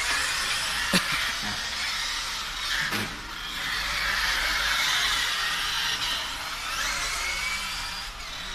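Radio-controlled racing cars running on an asphalt track. Their high motor whine rises and falls in pitch as they accelerate, brake and pass. There is a sharp click about a second in.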